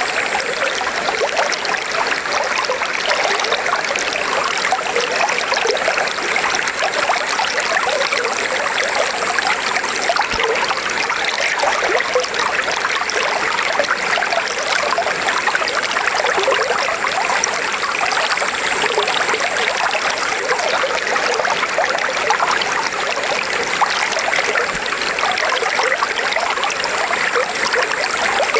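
River water flowing steadily over rocks, a continuous rushing and trickling with a bright babble.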